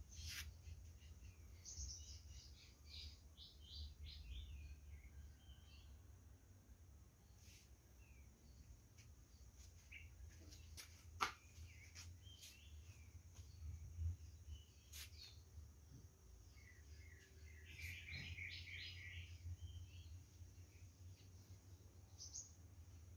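Faint birds chirping in scattered short calls, with a quick run of chirps about three-quarters of the way through, over a steady high hiss and a low rumble. A few sharp clicks come near the middle.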